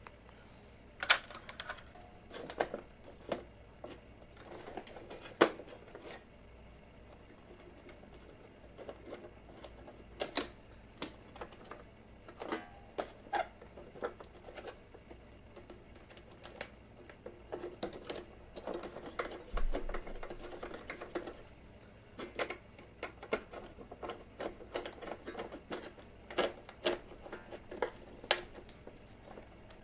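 Irregular clicks, taps and rustling from hands working on a fluorescent shop light fixture, handling its wires and metal parts.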